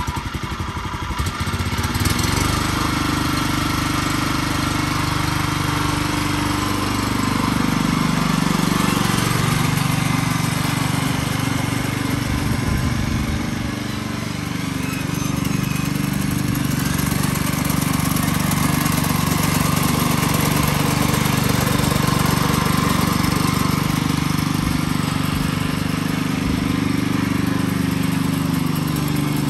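Honda single-cylinder engine on a gas-electric hybrid push spreader, just started and settling into a steady run within the first couple of seconds. It is held at a reduced speed of around 2850 rpm, which makes it a little quieter, and it drives a generator that powers the spreader's electric motor.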